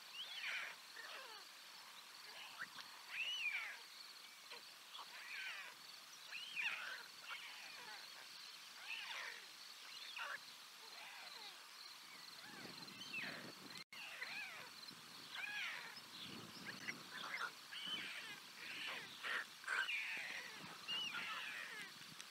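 White stork chicks begging for food: a steady stream of short, squeaky rising-and-falling cries. Gusts of wind rumble on the microphone in the second half.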